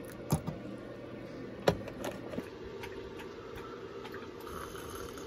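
Coffee being served and drunk from an enamel camp mug: a few light clicks and knocks of the glass carafe and mug in the first half, then a soft sip near the end, over a faint steady hum.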